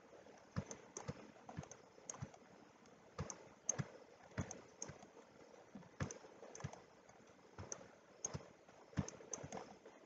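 Faint, irregular clicking of a computer mouse and keyboard at the desk, roughly two sharp clicks a second, some in quick pairs.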